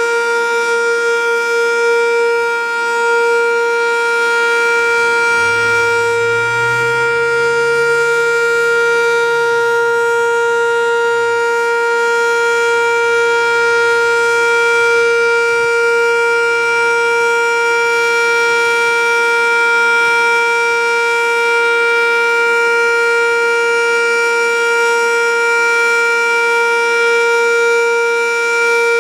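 Sentry 7V8 outdoor warning siren sounding a steady, unwavering tone at full speed: the Alert (weather) signal.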